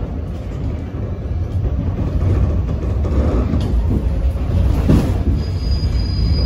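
Running noise heard from inside a moving R68 subway car: a steady low rumble of wheels on track that grows slightly louder, with a short knock about five seconds in and a faint high wheel squeal starting near the end.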